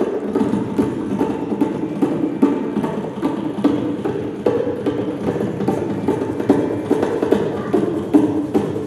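Tabla, Bangla dhol and shreekhol played together in a fast, steady stream of drum strokes, imitating the clatter of a train running past open fields.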